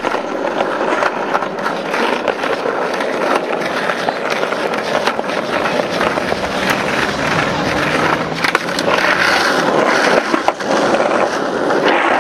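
Skateboard rolling over stone paving slabs: a steady wheel rumble broken by frequent sharp clicks.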